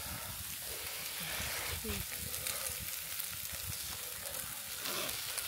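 Fried rice sizzling on a hot griddle pan over a portable gas stove: a steady crackling hiss with many small pops.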